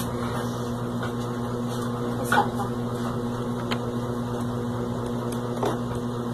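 A steady low hum, with a few faint clicks about two and a half, four and six seconds in.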